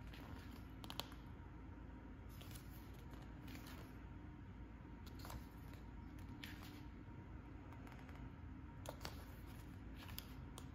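Pages of a thin paper booklet being turned and flicked by hand, giving soft, brief paper rustles every second or two over a low steady room hum.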